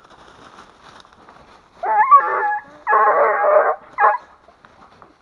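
Hunting dogs worrying a fox: a whining yelp about two seconds in, then a longer, harsher cry and a short yelp, over rustling leaves.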